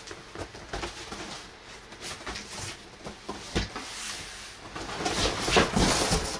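A large cardboard shipping box being handled and turned upside down: scattered knocks and cardboard scrapes, with a louder stretch of rustling and scraping about five seconds in.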